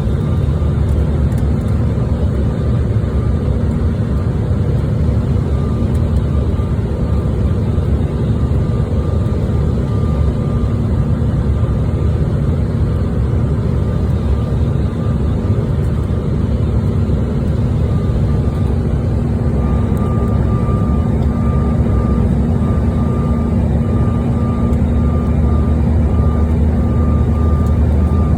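Airliner cabin noise in flight: a steady, loud low rumble of jet engines and airflow, with a thin high tone that drops in and out and is steadier in the second half.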